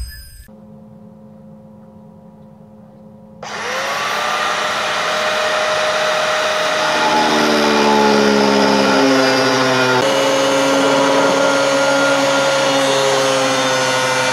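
Angle grinder with a thin cut-off disc starts about three and a half seconds in, its whine rising as it spins up. It then cuts steadily through circular saw blade steel, a loud whine over a grinding hiss, its pitch sagging a little now and then under load. A quieter hum comes before it starts.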